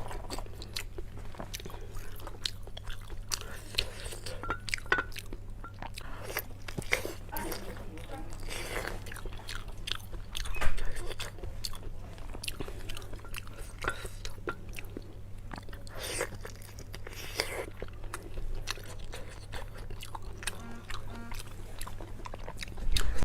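Close-up eating sounds: a person chewing and biting food, with many short wet mouth clicks and smacks and one louder bite about ten seconds in, over a steady low electrical hum.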